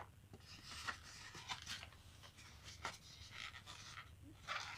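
Quiet rustling and scraping with a few light knocks: cardboard and packing foam being handled as a boxed Blu-ray player is worked free of its packaging.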